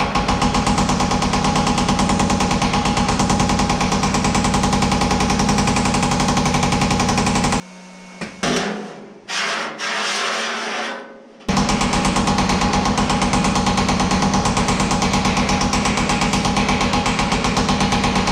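Power hammer running, pounding a steel door panel with rapid, even blows over a steady motor hum. It stops for a few seconds about eight seconds in, then starts pounding again.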